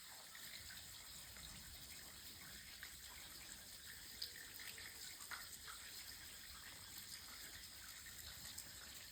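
Faint trickling water, with a few small ticks scattered through it.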